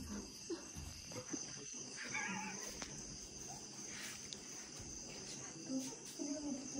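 Crickets trilling steadily in two even, high-pitched tones, with faint scattered low noises underneath.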